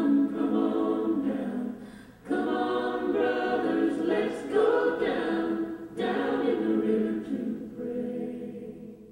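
A group of voices singing unaccompanied in harmony, a spiritual-style choral song. The singing pauses briefly about two seconds in and again near six seconds, and fades away at the end.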